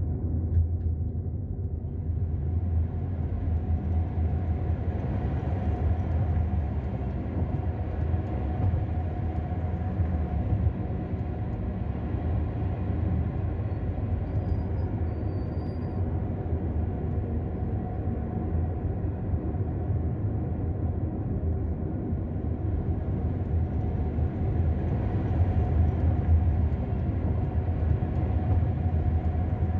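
Steady low rumble of a car's engine and tyres while driving along a road, with an even hum and no sharp changes.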